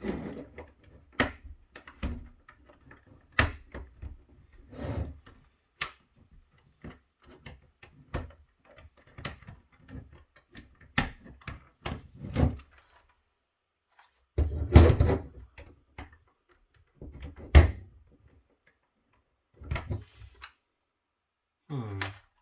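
Irregular clicks, knocks and clattering as the AMX Modero NXT-CV7 touch panel's housing is pried and forced open by hand, with a louder rough clatter about fifteen seconds in.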